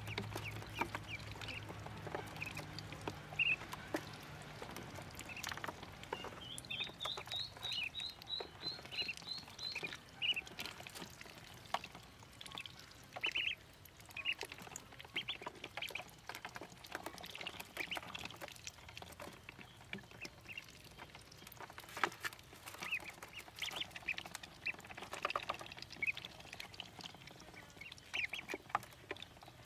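Ducklings peeping in short, high calls, with a run of quick, evenly spaced peeps, about three a second, from about seven to ten seconds in. Scattered clicks and taps come from their bills at the plastic waterer and tub.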